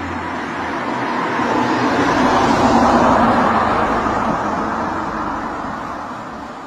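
A road vehicle passing close by: a rushing noise that swells to a peak about three seconds in, then fades away.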